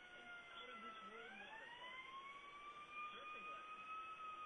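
A faint siren wailing: one tone that slides slowly down, swings back up about a second in, holds, and begins to fall again near the end.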